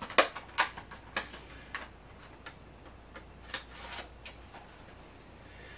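Irregular sharp clicks and taps, about a dozen, bunched in the first two seconds and again around the fourth second: small hard objects being handled on a table.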